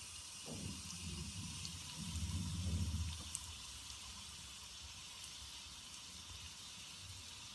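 Hot oil sizzling steadily in a pan as a tempering of chana dal, moong dal, cumin and mustard seeds fries until lightly browned. Low rumbling knocks of the pan or spoon being handled come about half a second in and again around two to three seconds in, the loudest part.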